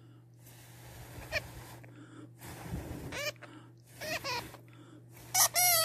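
Hamster squeaking: a faint squeak, then a few short chirps, and near the end a run of loud repeated squeaks. A steady low hum runs beneath.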